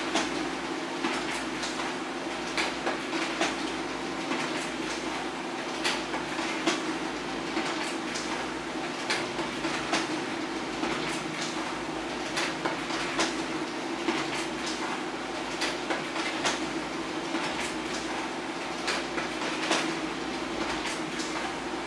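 HP LaserJet Pro M402d laser printer running a long, continuous two-sided print job: a steady motor hum with a sharp click or clack about once a second as sheets are fed, turned and ejected.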